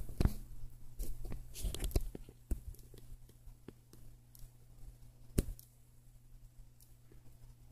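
A female narrow-winged mantis chewing insect jelly, its mandibles giving faint irregular clicks. These are mixed with louder knocks from the phone being handled close by: several in the first two seconds and one about five seconds in. A low steady hum runs underneath.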